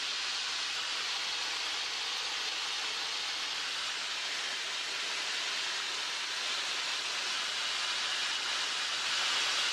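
Steady hiss of a light aircraft's cockpit intercom feed in flight, with no distinct engine tone, growing slightly louder near the end.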